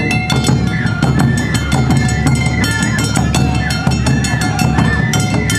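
Awa odori festival music: a bamboo flute melody with short sliding notes over a steady, dense beat of taiko drums and struck kane gongs.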